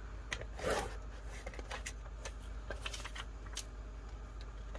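Paper being handled on a craft mat: a short rustle a little under a second in, then scattered light taps and clicks as sheets and supplies are moved about.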